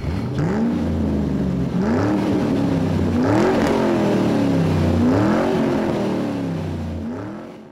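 An engine revving in about five repeated blips, its pitch rising and falling each time over a steady low hum, fading out near the end.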